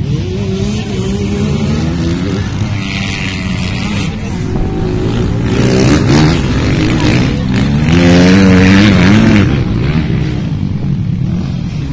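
Several dirt bike engines revving and passing on a race track, their pitch climbing and dropping as riders accelerate and shift. Loudest about halfway through and again around eight to nine seconds in.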